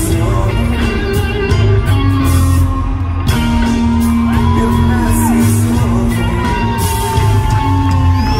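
Live rock band playing in an arena: electric guitars, bass and drums under a male lead vocal, with long held notes through the second half.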